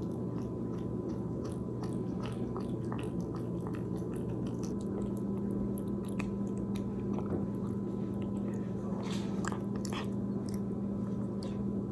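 Cat purring steadily close to the microphone, with scattered small clicks.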